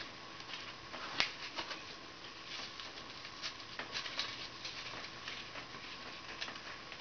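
Faint rustling and scattered light clicks of a 2-inch nylon webbing strap being wrapped snugly around a pair of skis and poles, with one sharper click about a second in.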